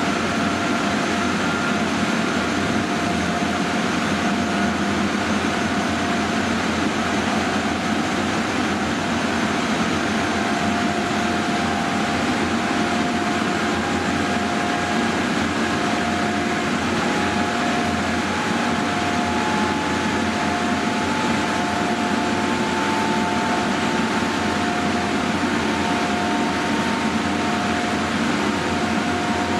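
Machine room of an ICE 1 (class 401) power car under way: traction equipment and cooling fans run with a loud, steady rushing noise. A few faint whining tones from the traction drive shift slightly in pitch.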